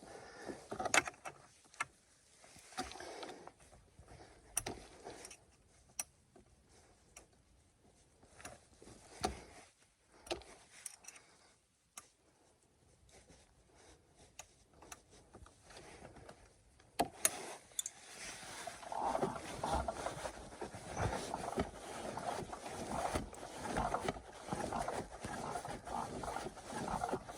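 Scattered clicks and knocks of tools on a snowmobile's secondary clutch. About two-thirds of the way in, a continuous rough rubbing sound begins as the drive belt and clutch are spun by hand to check the belt's height.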